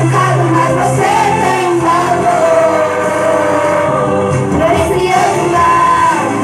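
Young women singing a song through microphones over amplified accompaniment, the melody held over steady low notes.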